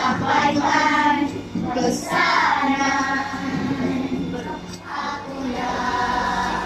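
Children's choir singing together with musical accompaniment, holding some notes for a second or more.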